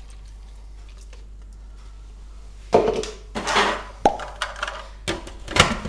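Plastic clatter and sharp knocks of a food processor bowl and lid being handled and fitted, starting about three seconds in; before that only a faint low hum.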